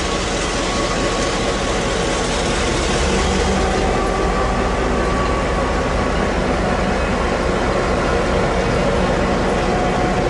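Taiwan Railways diesel-electric locomotive R21 passing slowly at close range, hauling freight wagons, its diesel engine running steadily with the rumble of the train on the rails. It grows a little louder about three seconds in as the locomotive draws alongside.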